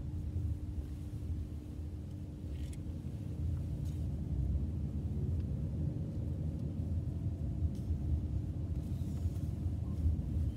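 Car driving at low speed, heard from inside the cabin: a steady low rumble of the engine and tyres on the road, with a steady hum.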